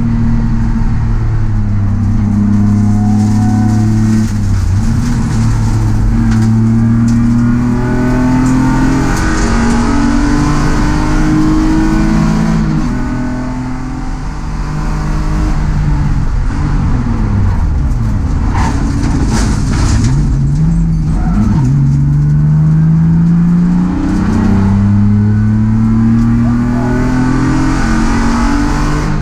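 In-car sound of a BMW E36 race car under hard acceleration, the engine revving up through the gears and dropping back at each shift. Around the middle the engine note falls away and comes back, with a short run of sharp knocks and clatter before it winds up again.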